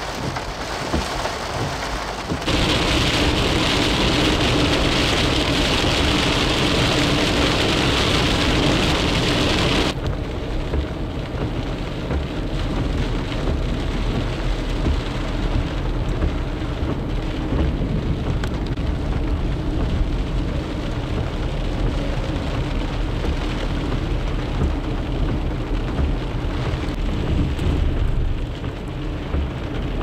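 Rain falling on and around a vehicle, over a constant low rumble. A brighter, louder hiss starts a couple of seconds in and stops abruptly about ten seconds in, leaving a duller, rumbling rain sound.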